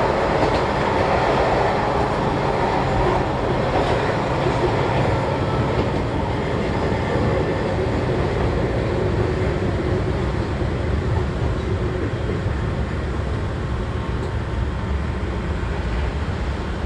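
Keihan Ishiyama-Sakamoto Line train running, heard from inside the car: a steady rumble of wheels and motors on the track, getting a little quieter over the second half.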